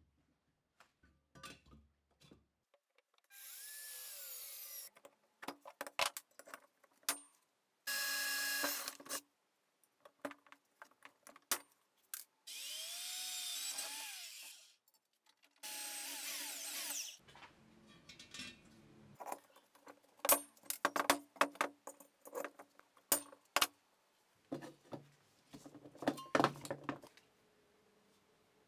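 Electric hand drill boring into steel square tube in four bursts of a few seconds each, followed by a run of short, sharp metal clicks and knocks.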